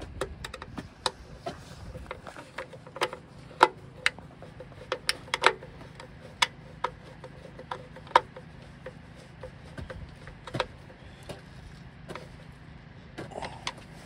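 Irregular sharp clicks and taps of a screwdriver and stiff wires against the terminals and sheet-metal walls of an electrical box, as wires are fitted to fuse holders and breakers, with a few louder knocks in the middle.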